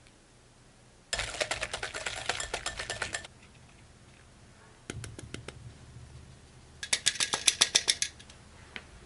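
Metal mesh sieve shaken against a stainless steel bowl to sift flour: rapid metallic rattling in two bursts, the second the louder, with a few lighter taps in between.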